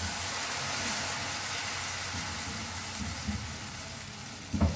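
Egg batter sizzling as it is poured into a hot frying pan, a steady hiss that slowly fades. A brief thud near the end.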